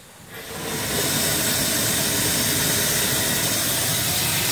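Live steam hissing through a fire-tube boiler's blower ring as the blower valve is opened: it builds up within about a second into a steady, even rush. The steam jet up the stack forces a strong draft through the firebox.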